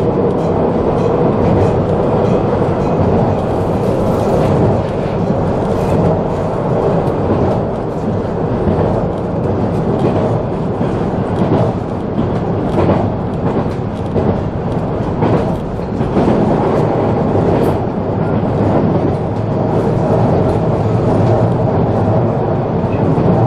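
Local electric train running at speed, heard from inside the carriage: a steady rumble of wheels on rail with a steady hum and scattered short clacks from the track.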